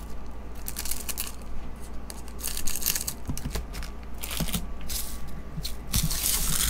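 Trading-card pack wrappers crinkling as a hand picks up, shuffles and stacks the snipped-open packs, with irregular light taps as they are set down on the table mat.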